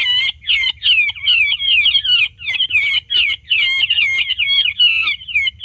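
Charkhi bird calls, many overlapping chattering notes several times a second, played from a sound box as a lure to call in the flock.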